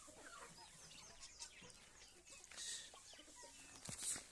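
Young aseel chickens peeping softly, many short falling chirps scattered throughout.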